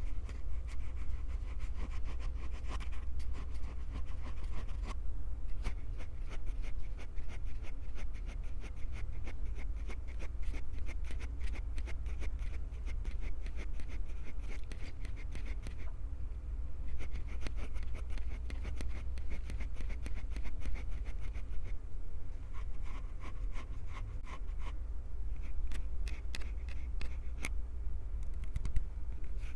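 Fingers scratching, rubbing and gripping right on a Tascam handheld recorder's microphones, a dense, unbroken run of fast crackly scratches over a low handling rumble.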